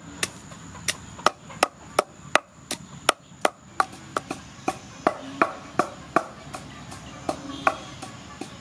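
Long wooden pestle pounding a spice paste of lemongrass, galangal and turmeric in a large wooden mortar: a steady rhythm of sharp knocks, about three a second.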